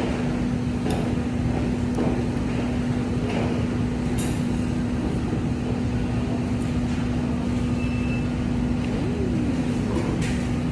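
A steady mechanical hum and low rumble with one constant mid-low tone, and a few faint clicks.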